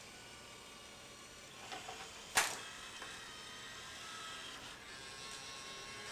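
Pioneer CLD-3070 LaserDisc player's open drive mechanism running, with a steady whine of several motor tones. A few light clicks come about two seconds in, then one sharp mechanical click, the loudest sound, a moment later.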